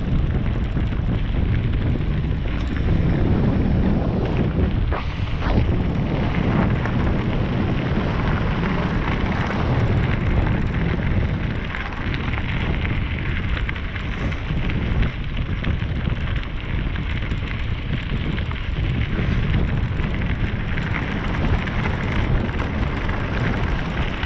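Mountain bike descending a gravel road at speed: wind rushing over the microphone and knobby tyres rolling over loose gravel, with a few knocks and rattles from bumps.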